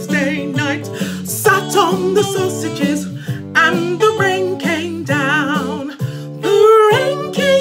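A woman singing a children's singalong song with a strong vibrato over an instrumental accompaniment.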